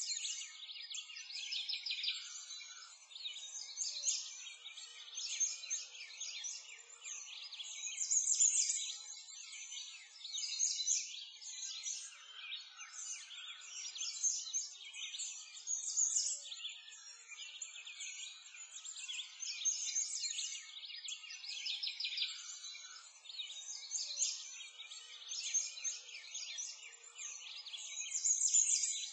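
Dense chorus of many songbirds chirping and trilling continuously, all high-pitched with nothing low beneath it.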